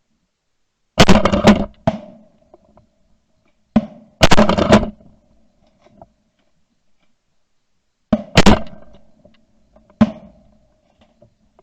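A string of loud shotgun shots from several hunters firing at incoming ducks, in three bursts: about a second in, around four seconds in, and from about eight to ten seconds in, each shot trailing off in a short ringing echo.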